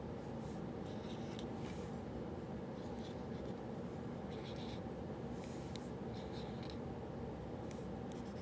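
Writing on paper in short scratchy strokes, coming in irregular clusters, over a steady low hum of room noise.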